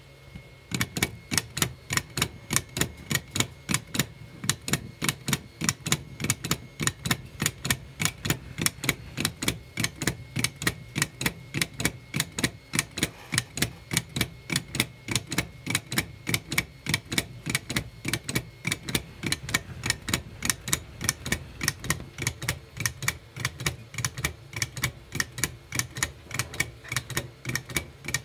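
3D-printed plastic clock escapement ticking steadily: the escape wheel's teeth clicking against the pallets in an even, rapid rhythm as the balance wheel swings. The ticking starts about half a second in.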